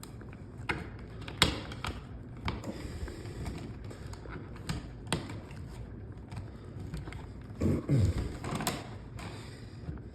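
Scattered clicks and taps of electrical wires being handled, bent and pushed into an outlet box, the loudest about a second and a half in. There is a short creaking scrape about eight seconds in.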